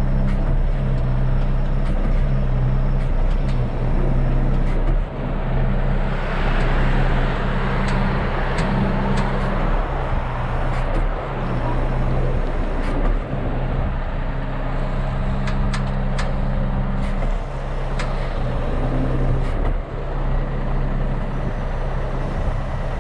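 Large diesel truck engine running steadily. A rushing noise swells up about six seconds in and fades by about ten seconds, with scattered sharp clicks.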